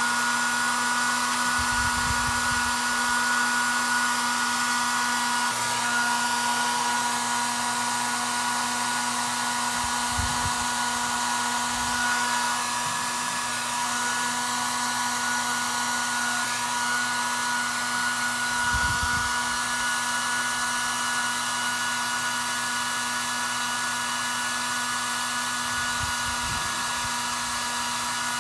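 A handheld hot-air blower running steadily with a fixed whine over its airflow hiss, of the kind used to dry touch-up colour and lacquer on a floor repair. A few faint low knocks of handling come through now and then.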